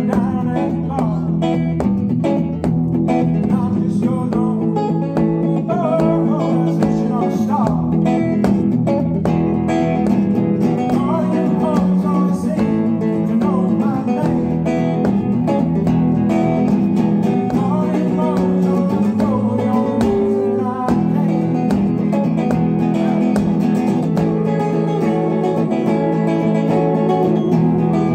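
Live band music led by guitar, with a sung melody over a steady, sustained low accompaniment.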